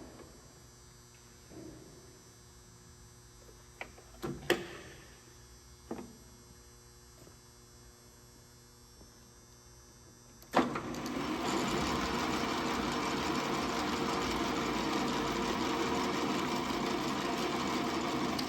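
ENCO 12" x 24" metal lathe: a few sharp clicks and knocks over a low hum, then about ten seconds in a knock as the lathe starts and runs steadily with a dense motor and gear-train sound.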